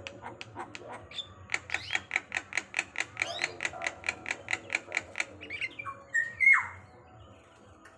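Javan myna calling: a fast run of sharp repeated notes, about four a second, then a loud falling squawk about six seconds in.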